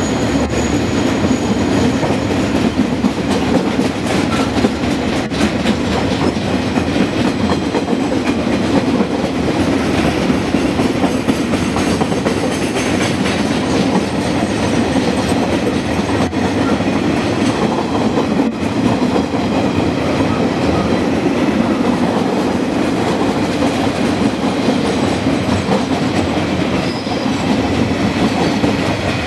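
Freight train of empty log wagons rolling past at close range: a steady loud rumble of steel wheels on the rails with a clickety-clack over the rail joints.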